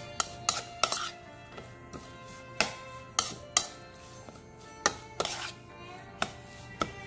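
A metal spoon clinking and scraping against a bowl while tossing chopped fresh herbs and sliced lemongrass, about ten sharp clinks at irregular intervals. Background music plays underneath.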